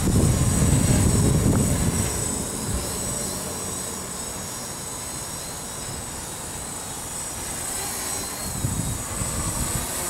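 Quadcopter's electric motors and propellers buzzing as it hovers and manoeuvres in strong wind. Gusts of wind buffet the microphone, loudest in the first two seconds and again near the end.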